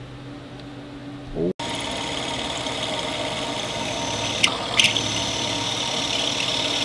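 CNC vertical mill's spindle running as a drill bit in its chuck bores into an aluminium enclosure, a steady hiss with a faint tone, broken by two brief sharp sounds about two-thirds of the way through. Before that, about a second and a half of quieter machine hum ends with a short rising sweep.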